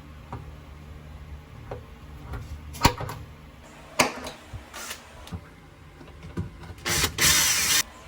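Cordless drill running in short bursts, driving screws while fitting push-to-open drawer latches. There are two sharp knocks in the middle, and the loudest, longest burst of just under a second comes near the end.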